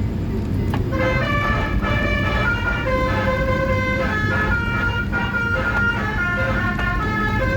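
Basuri 'telolet' multi-tone horn playing a tune of clear notes that step up and down, starting about a second in, over a steady low rumble.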